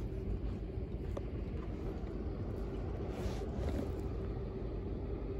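Boat engine droning steadily: a low rumble with a faint constant hum through it.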